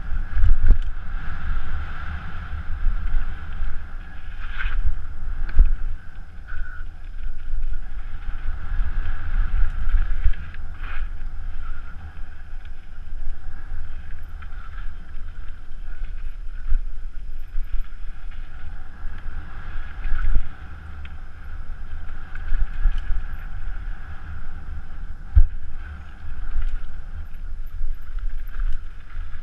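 Mountain bike descending a dirt forest singletrack: wind buffeting the helmet camera's microphone over a steady rumble of tyres on the trail, with scattered knocks and rattles as the bike hits bumps and roots.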